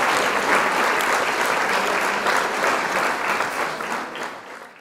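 Applause sound effect, a crowd clapping densely and steadily, fading out over the last second.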